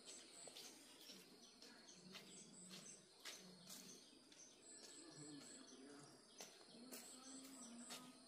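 Quiet rural ambience: small birds chirping faintly in short, high, repeated notes, with a few faint clicks.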